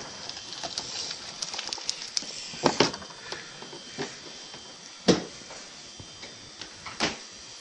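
Sharp knocks and light clatter of food items being handled and taken out of a refrigerator, with about four louder knocks among smaller ticks.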